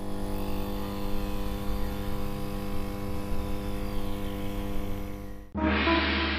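A steady, sustained electronic drone: a low hum of several held tones with a faint hiss, the kind of sound effect used under a title card. It cuts off about five and a half seconds in, and music with a heavy steady bass and picked notes begins.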